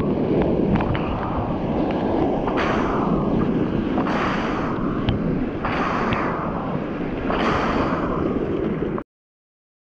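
Sea water rushing and splashing around a surfboard, with wind buffeting the action camera's microphone. A louder splash comes about every second and a half, and white water washes around the board near the end. The sound cuts off suddenly about nine seconds in.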